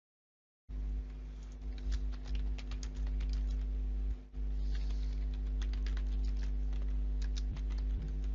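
Typing on a computer keyboard: a run of quick key clicks over a steady low electrical hum. The sound cuts in from dead silence just under a second in.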